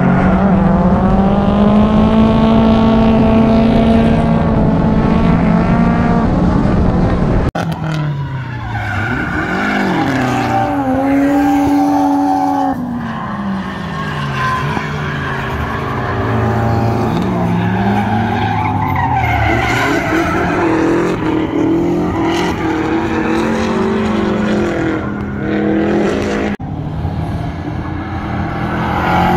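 Drift cars' engines revving hard, the pitch climbing and dropping again and again as the throttle is worked through the slides, with tyres squealing. The sound breaks off abruptly twice, about seven and a half seconds in and near the end.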